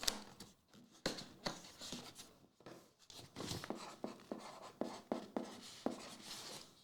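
Scattered light clicks, taps and rustles of trading cards and their packaging being handled on a table.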